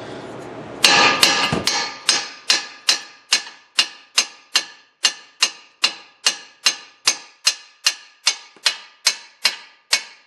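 Hammer blows on metal, struck steadily about two and a half times a second, each ringing briefly. A short burst of clattering comes first, about a second in.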